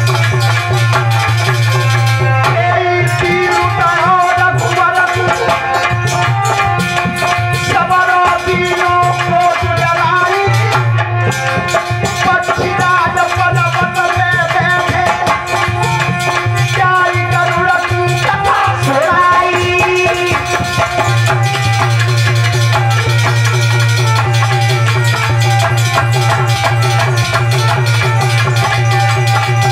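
Live Indian folk music with hand-drum percussion and a jangling rattle-like rhythm over a steady low drone. A man sings into a microphone from a few seconds in until about two-thirds of the way through.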